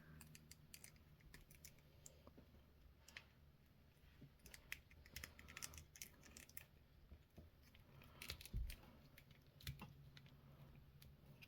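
Faint, scattered small clicks and light taps of a plastic action figure being handled, over near silence. There is a busier stretch of clicks just before the middle and a louder group about eight seconds in.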